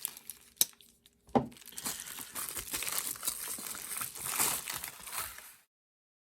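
Package being unwrapped by hand: a couple of sharp clicks, then several seconds of crinkling and tearing of packaging, which cuts off suddenly near the end.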